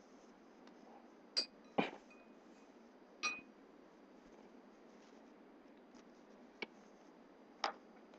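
A few short, sharp clicks and clinks over a faint steady hiss, the loudest a little under two seconds in, one of them ringing briefly.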